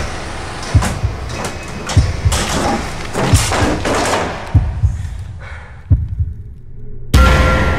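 Deep, evenly spaced thumps, about one every 1¼ seconds, like a slow heartbeat pulse in a tense film score, with rushing noise between them. Near the end a loud sudden hit comes in with a held tone after it.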